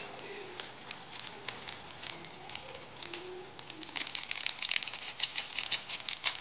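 A seasoning sachet crinkling and crackling as it is tipped and shaken out over instant noodles in a pan. There are a few scattered ticks at first, then a dense run of crackling from about four seconds in.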